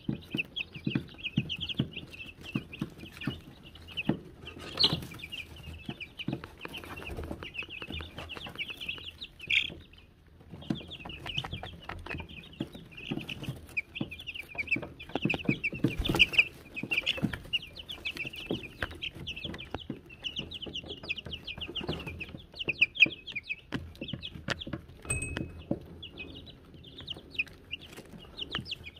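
A brood of Wyandotte chicks peeping constantly in rapid high cheeps, with sharp clicks and rustles from the chicks pecking and scratching in pine shavings. A small bell rings once about 25 seconds in.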